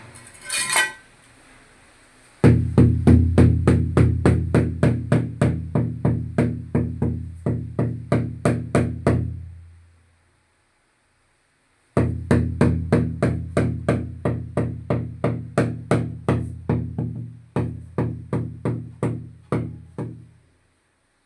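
Background music: plucked notes in a steady rhythm over a deep bass. It breaks off about ten seconds in and resumes two seconds later.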